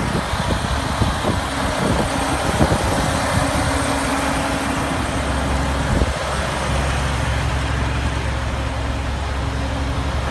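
Freightliner semi-truck's diesel engine idling steadily, heard up close, with a few short knocks in the first three seconds.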